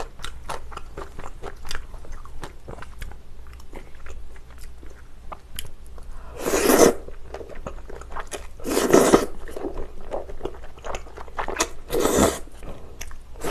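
Close-miked slurping and chewing of thick Chinese glass noodles in spicy sauce: three loud slurps, about halfway, near two-thirds and near the end, with many small wet chewing clicks between.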